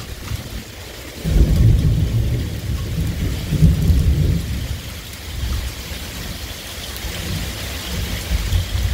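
Rolling thunder over steady rain. The low rumble dips, swells again about a second in and fades away over the next few seconds, while the rain's hiss carries on.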